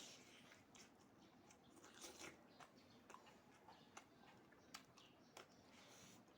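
Faint close-up eating sounds: a person chewing pork and beans, with soft mouth smacks and scattered sharp clicks.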